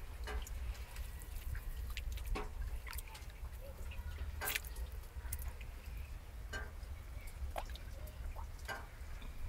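Irregular drips and sharp clicks of water and ice, one or two a second with a louder one about halfway, over a steady low rumble.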